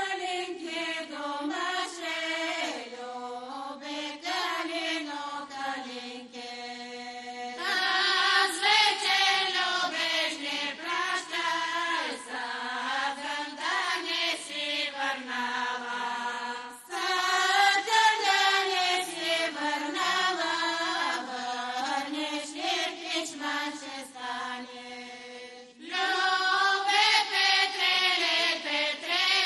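Women's folk choir from a Bulgarian village singing unaccompanied in close-voiced harmony. The phrases come in loud and die away, with a new one entering about every nine seconds.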